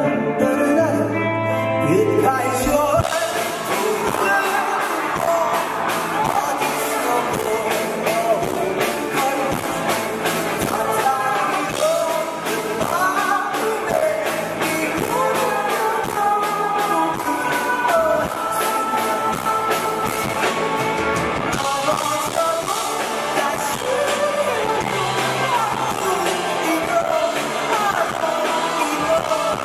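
Live rock band performing: a male lead singer sings a slow song into a microphone over electric guitar, bass and drums. The full band comes in about two and a half seconds in, after a short guitar passage.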